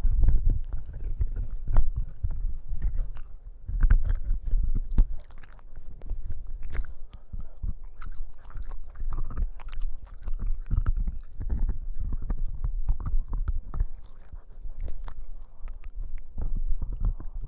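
Boston Terrier puppy chewing and gnawing a hard black object with a cord: irregular clicks, crunches and low thumps from its teeth and jaw.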